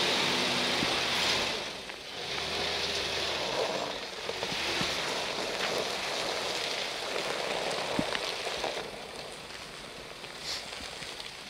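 Nissan Safari Y61 climbing a dirt slope with its tyres spinning, flinging dirt and stones in a pattering hiss that comes in three surges over a low engine note, then dies down.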